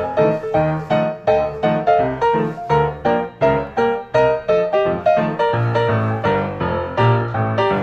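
Background piano music: a steady run of single struck notes, about three a second, each dying away.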